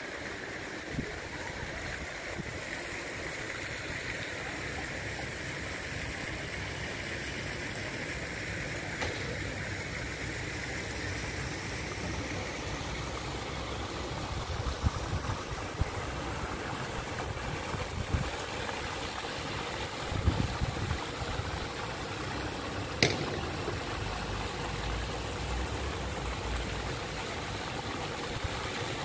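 Steady rushing outdoor background noise with a low rumble, broken by a few brief knocks in the second half.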